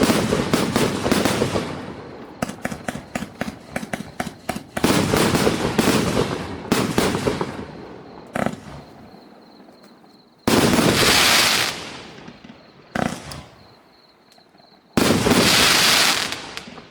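Fireworks display cake firing its finale: a rapid run of shots and bursts, then a few separate loud bursts of dense hissing crackle lasting a second or two each, with quieter gaps between.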